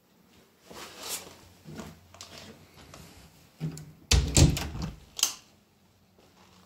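Knocks and clatter of an interior door being handled, loudest in a burst of heavy thumps about four seconds in, followed by a sharp click.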